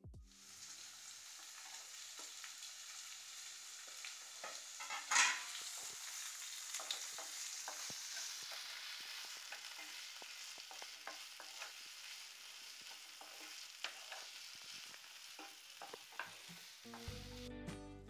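Sliced onion, tomato and capsicum sizzling as they stir-fry in a nonstick frying pan, with a wooden spatula scraping and tapping against the pan and one louder scrape about five seconds in. Guitar music comes in near the end.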